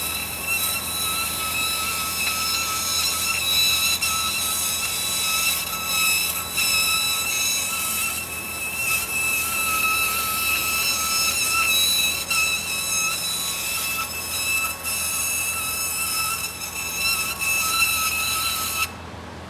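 Fiber laser marking machine cutting a pattern out of thin metal sheet: a steady high-pitched whine with a ladder of overtones, wavering slightly as the beam traces the shape. It stops suddenly near the end.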